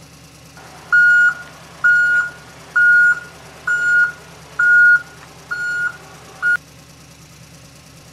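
Electronic warning beeper like a vehicle's reversing alarm: seven beeps at one steady pitch, a little under one a second, over a low steady hum.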